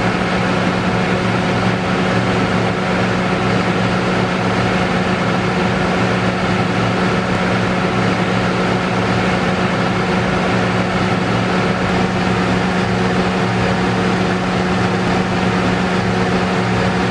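Excavator's diesel engine running steadily, with a strong, even low hum and no change in speed.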